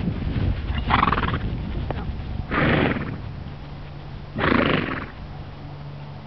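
A horse calls three times, each a short rough sound about half a second long, spaced roughly a second and a half apart.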